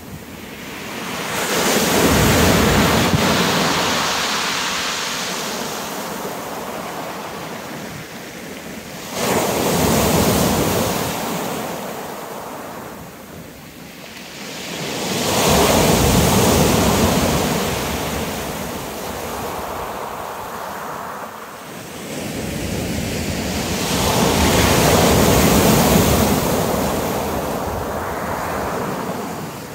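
Surf breaking on a shingle beach: four waves about seven to eight seconds apart, each one swelling to a loud rush and then fading away.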